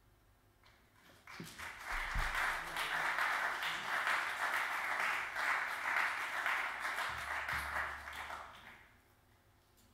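Audience applauding, starting about a second in and fading out near the end.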